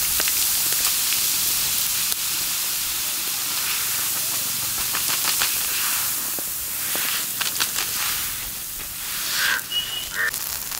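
Water poured onto a hot griddle over a wood fire, flashing into steam with a loud, steady hiss that slowly fades. Scattered crackles come through in the later half.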